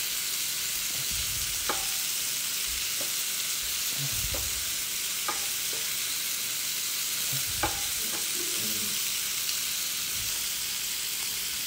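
Shrimp frying in a pan with a steady sizzle, while a spatula flips them, scraping and giving a handful of light knocks against the pan.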